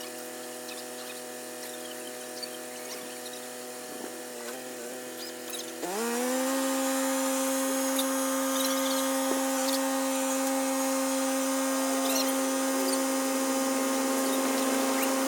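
An engine running steadily at low speed, then throttled up about six seconds in: the pitch rises quickly and holds at a louder, steady higher speed.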